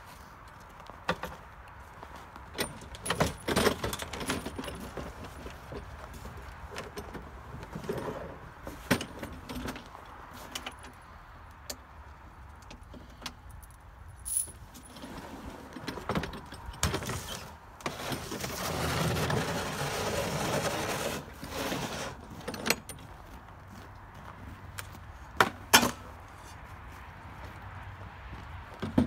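Handling of a plastic ice-fishing sled and its metal tow hitch: scattered clinks, jangling rattles and knocks, with a few seconds of steady scraping a little past the middle.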